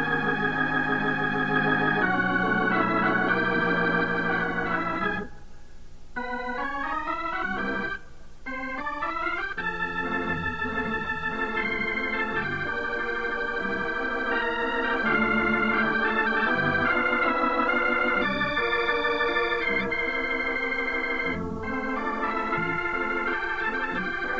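Organ music playing sustained chords and melody notes that change every second or so, dropping briefly quieter twice, about five and eight seconds in.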